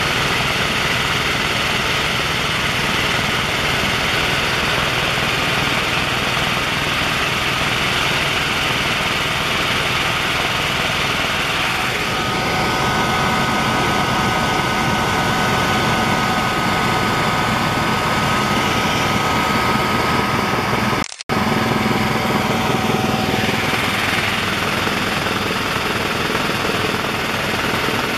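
Loud, steady cabin noise of a Helijet Sikorsky S-76 helicopter in flight: engine and rotor drone, with a high whine of steady tones joining about halfway through. The noise drops out for an instant about three-quarters of the way in, where the recording is cut.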